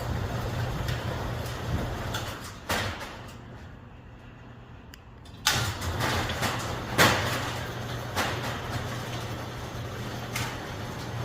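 Steady low machine hum with sharp metallic clanks now and then; the hum drops away for a couple of seconds in the middle and returns with a clank.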